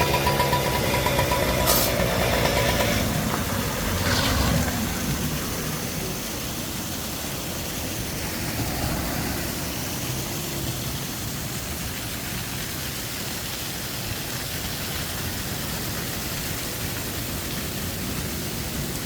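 A motor vehicle's engine passes and fades away over the first few seconds, with a couple of sharp clicks. Steady, even noise follows.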